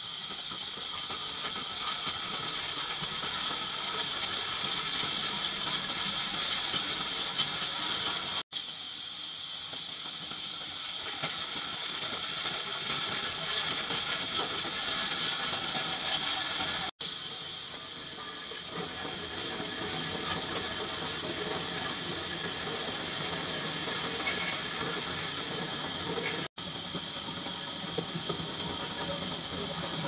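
Horizontal band sawmill cutting through a large timber, a steady, high-pitched rasping noise of the blade in the wood over the running machine, broken by three momentary dropouts.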